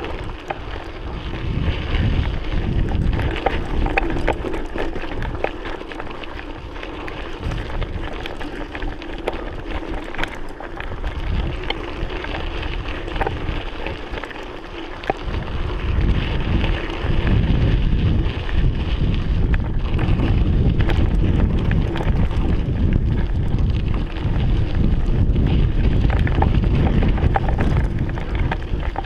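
Mountain bike riding a rough dirt trail: wind buffeting the microphone, with many small clicks and rattles from the tyres and bike over the rough ground. The noise grows louder about halfway through.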